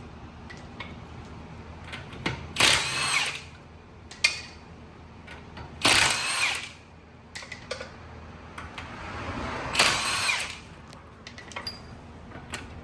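Power impact wrench run in three short bursts a few seconds apart, each under a second long, as wheel or suspension fasteners are spun loose.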